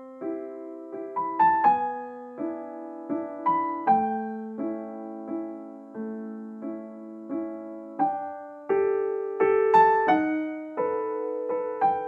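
Background piano music: slow single notes and chords struck roughly every two-thirds of a second, each ringing and fading.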